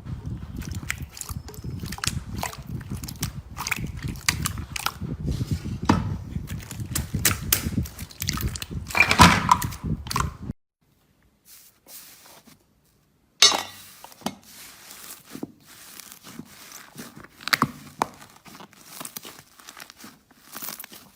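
Slime being squished and kneaded by hand, giving a dense run of small sticky clicks, pops and crackles. It cuts off suddenly about ten seconds in, falls almost silent for about three seconds, then comes back as sparser crackles and pops.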